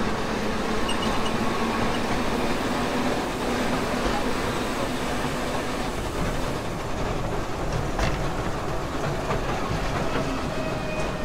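Small amusement-park ride train running along its track: a steady rumble of wheels on rail, with a few sharp clicks, one about eight seconds in and more near the end.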